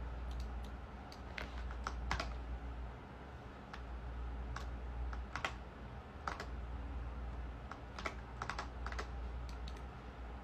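Irregular clicks of a computer keyboard and mouse being worked, single taps and quick clusters, over a steady low hum.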